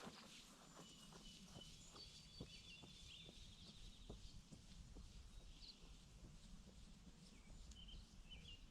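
Faint birdsong: thin, high whistled calls and a trill, then short chirps near the middle and near the end, over a quiet outdoor background with faint light taps in the first half.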